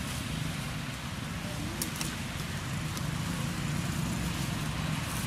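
Steady low rumble of road traffic or a running vehicle engine, with a couple of faint clicks about two seconds in.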